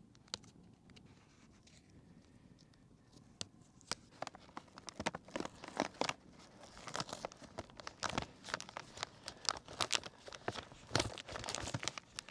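Paper bag of Kingsford Match Light charcoal being torn and crinkled open at the top by hand: fairly quiet at first, then many short rips and crackles from about four seconds in, as the easy-open pull strip fails to open cleanly.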